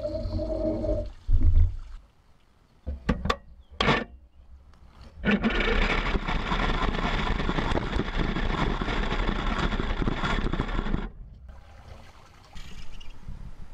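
Meccano model truck's small electric drive motor whining for about the first second, then a few clicks, then about six seconds of steady rushing, splashing water as the truck runs through shallow water in a gutter.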